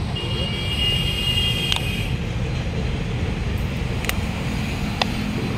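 Hero Honda CBZ Xtreme's single-cylinder engine idling steadily through its handmade modified silencer. A horn sounds for about two seconds near the start, and there are a few sharp clicks.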